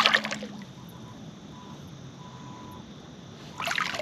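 Water splashing as a large fish is released over the side of a boat and kicks away, in the first half-second. Near the end, a new run of quick splashing as hands are swished through the water.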